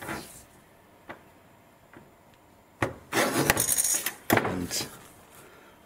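Lever-arm guillotine cutter shearing through a copper-clad circuit board: a sharp click about three seconds in, then about two seconds of noisy cutting with another click partway through.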